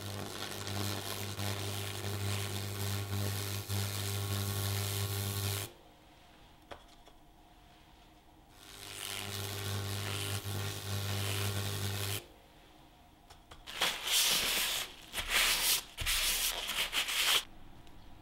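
Electrolytic weld cleaner's brush fizzing and crackling against a steel weld, with a steady low electrical buzz, in two passes of about five and three seconds. Near the end, a few seconds of louder, rough rubbing noise with no buzz.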